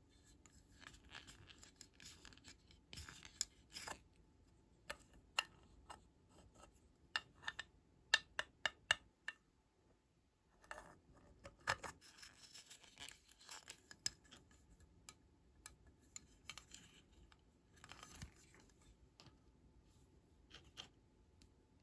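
Small plastic toy pieces handled by hand: soft clicks, taps and rubbing as the screw cap of a small plastic toy bottle is twisted off, with a quick run of sharp clicks near the middle.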